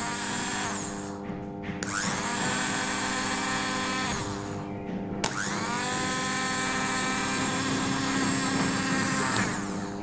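Small 12 V motorbike starter motor, running with no load on DC from a rewound microwave oven transformer, started twice. Each start is a sharp click as the lead makes contact, then a rising whine that settles to a steady pitch and dies away when the contact is broken. A steady hum sits underneath.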